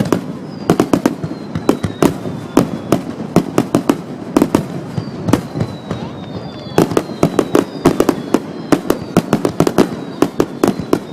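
Fireworks display: a rapid volley of sharp bangs from bursting shells, several a second, easing off for a moment midway and then picking up again, with high whistles falling in pitch. Recorded on a digital camera's built-in microphone, which distorts the loud booms.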